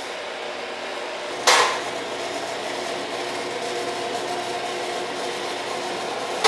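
Metal chain and hook of a hanging spring scale clanking sharply about one and a half seconds in, with another clank near the end, over a steady hum with several held tones.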